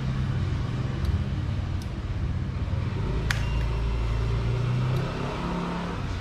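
Low steady mechanical hum with a few faint clicks through it.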